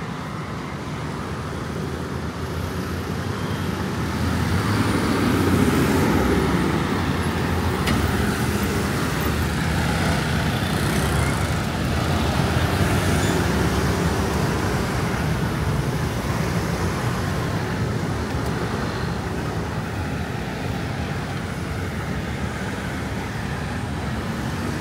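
City street traffic: a stream of motor scooters and cars driving through an intersection. The traffic noise swells about five seconds in as vehicles pass close, then settles to a steady wash.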